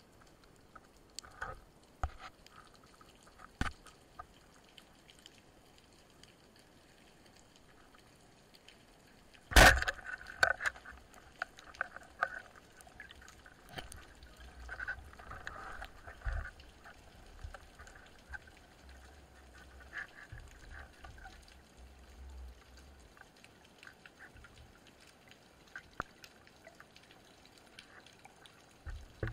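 Wooden speargun fired underwater: one loud sharp crack about ten seconds in, followed by several seconds of scraping, knocking and low rumbling as the shaft and line tug at a speared fish. Scattered light clicks come before the shot.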